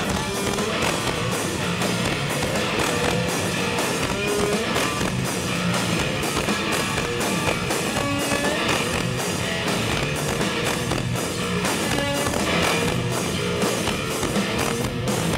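Live rock band playing, with electric guitar and drums carrying on steadily, heard from within the audience.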